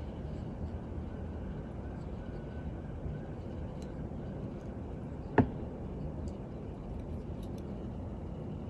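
Steady low background rumble, with one sharp click a little past halfway as a small watchmaker's tool knocks against the watch movement while the minute hand is fitted.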